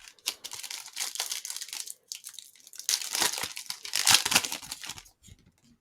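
Plastic wrapper of a trading card pack crinkling and tearing open, in several crackly bursts.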